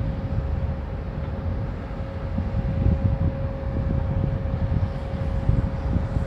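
Wind buffeting an outdoor microphone, a gusting low rumble, with a faint steady hum underneath.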